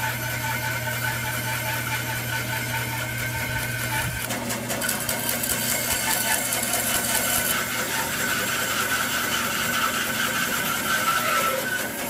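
Band saw running and cutting through a bark-covered log: a steady machine drone with a low hum and higher steady tones over a noisy hiss. The low hum changes about four seconds in.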